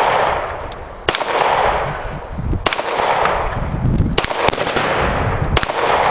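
Tri-Star Canik 55 S-120 9mm semi-automatic pistol firing five shots at slow, uneven intervals, two of them in quick succession about two-thirds of the way through. Each shot is followed by an echo that fades over about a second.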